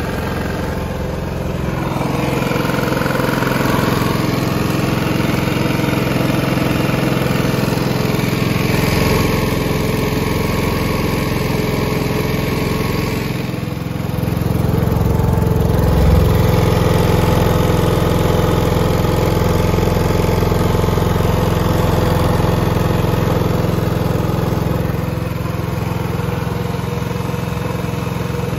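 Denyo GAW155ES engine welder-generator running steadily on its single-cylinder Yamaha MZ300 296 cc petrol engine, with an even, unchanging pitch. It gets somewhat louder from about halfway through.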